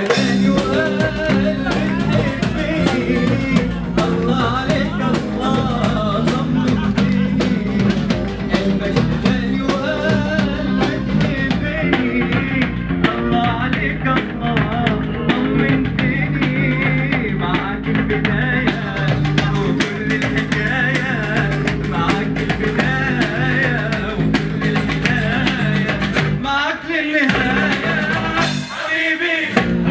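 Live band music played through a PA: nylon-string guitar and hand drum keep a quick, dense beat under a singer and melody line.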